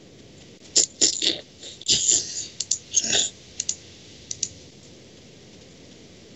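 A run of sharp clicks and taps on a computer mouse and keyboard, some coming in quick pairs, stopping about two-thirds of the way through.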